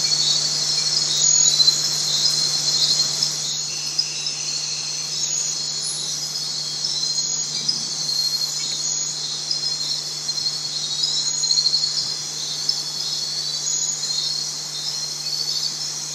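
Dense chorus of crickets and other insects, a steady high-pitched trilling, over a low steady hum.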